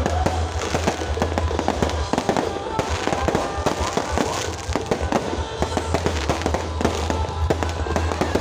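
A fireworks display going off, with many bangs and crackles in quick, unbroken succession, over a steady low hum.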